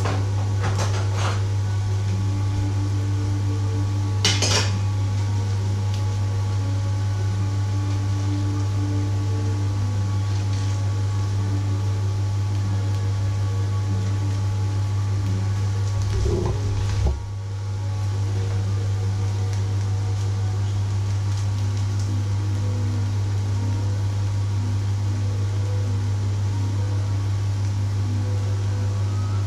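A steady low machine hum, with scattered clinks and clatters of dishes and cutlery. The loudest clatter comes about four seconds in, and a dull bump just past halfway.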